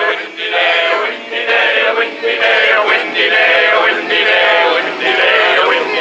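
A catchy song with male singing, playing loud and without a break.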